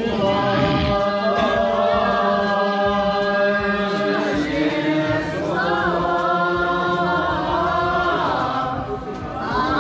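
A group of people singing together, holding long notes that bend in pitch, with a short pause for breath between phrases near the end.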